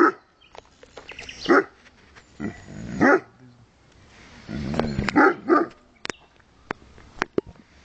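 Young Great Dane barking, about seven separate barks spaced irregularly, followed by a few sharp clicks near the end.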